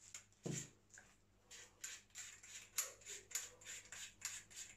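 Retaining nut of a Derya CRX400 pump-action shotgun being screwed on by hand: a soft thump about half a second in, then a run of faint, short scraping clicks, about three a second, as the nut turns on its thread.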